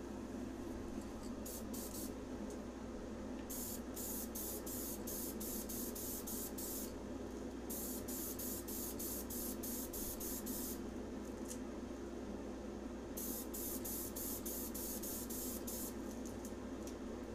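Krylon Fusion Clear aerosol spray can hissing in quick short spurts as light clear coats go on, in runs of a few seconds with pauses between them.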